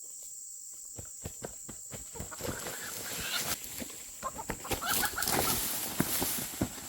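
Chickens clucking and squawking amid rustling and scattered knocks, over a steady high-pitched hum.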